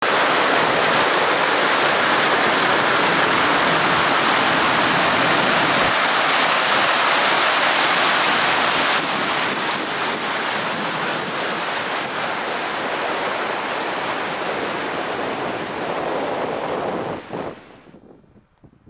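Loud steady rushing noise that drops slightly about halfway through and fades out near the end.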